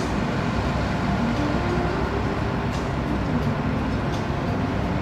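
Steady low rumbling noise, with faint wavering tones above it.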